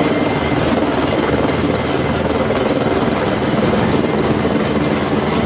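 Steady, dense din of a large crowd as hundreds of trail runners set off past spectators, with a steady low rumble underneath.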